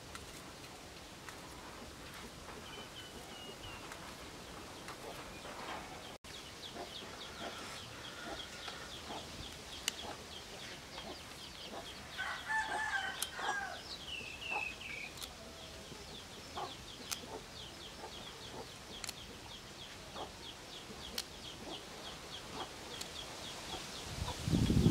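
A rooster crowing once about halfway through, over a rapid high chirping that repeats steadily in the background. Scattered sharp clicks from a knife cutting vegetables, and a few low thuds near the end.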